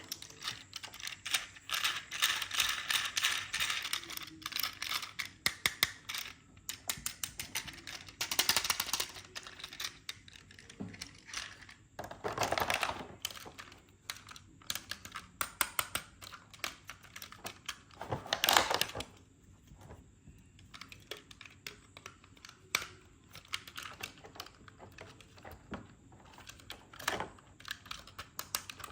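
Small toy cars and their plastic packaging being handled: a steady run of small clicks and taps, with a few louder, longer bursts of rustling noise.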